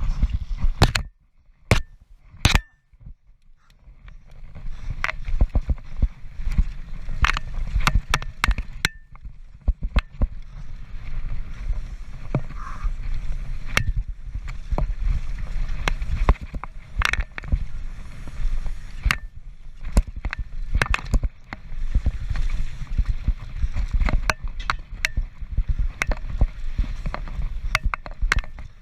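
Transition Patrol mountain bike ridden fast down a rough trail: a continuous low rumble from the tyres, broken by frequent sharp knocks and rattles from the bike over bumps. The sound drops almost to quiet about a second in, with a few clicks, then the rumble builds again from about four seconds.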